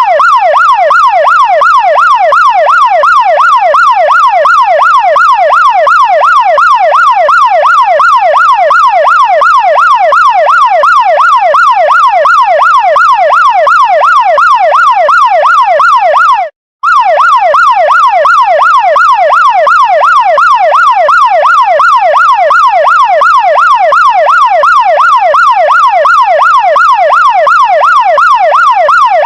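Chinese fire truck electronic siren sounding in fast repeated sweeps, each rising in pitch then dropping back, about two a second, over a faint steady low hum. It cuts out for a split second about sixteen seconds in.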